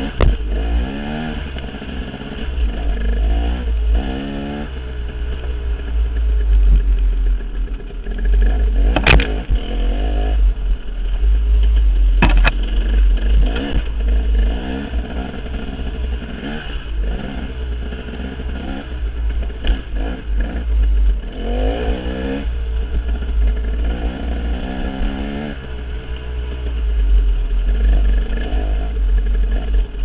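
KTM 300 two-stroke dirt bike engine revving up and down over and over while riding a rocky trail, over a heavy low rumble. A few sharp knocks, the loudest about nine and twelve seconds in.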